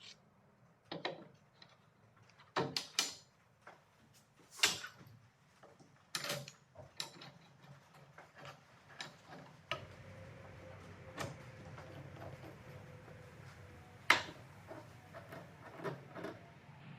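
Workshop handling sounds: a series of separate knocks and clacks of parts being moved and set down, the sharpest about four and a half and fourteen seconds in. A low steady hum comes in about ten seconds in, under further light taps.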